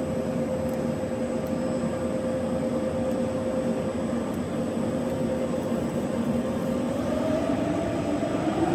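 1525F3 vertical turning lathe running, its main drive giving a steady machine hum and whine that rises in pitch about seven seconds in as the drive speeds up.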